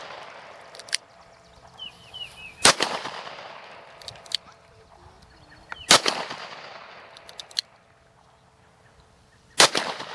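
Three shots from a Rossi R351 .38 Special revolver firing +P loads, roughly three seconds apart, each with a trailing tail. A fainter sharp crack follows about a second and a half after each shot.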